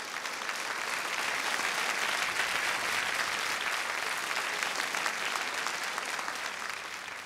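Audience clapping, swelling over the first couple of seconds, then dying away near the end.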